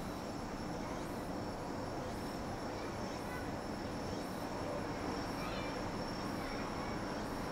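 Evening insects: a steady high trill with faint chirps pulsing about once a second, over a steady low hum of distant town traffic.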